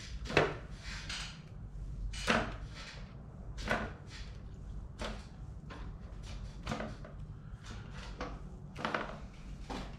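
A handful of sharp knocks and clatters at irregular intervals, a second or two apart, from handling the cut catfish pieces and knife on the cutting surface.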